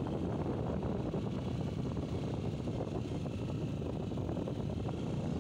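Steady low rumble of a moving vehicle, with wind noise on the microphone.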